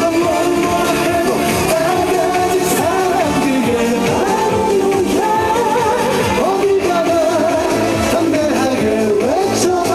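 Live trot song: a male singer singing a wavering melody over a loud, full backing band with a steady beat.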